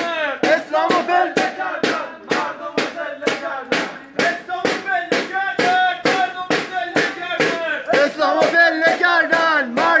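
Crowd of demonstrators chanting together over a steady sharp beat of claps or drum strikes, about three a second.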